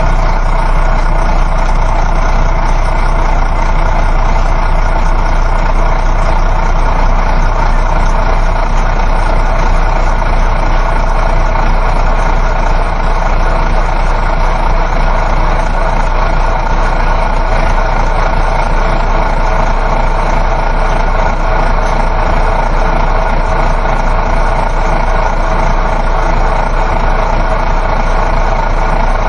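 Coach bus on the move, heard from inside: a steady engine drone and road rumble that holds the same level throughout.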